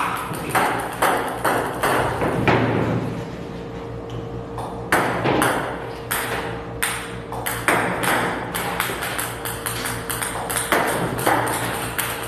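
Ping-pong balls from a table-tennis ball machine clicking off the table and a paddle. The clicks come irregularly, about one to two a second, with a pause of a couple of seconds early on.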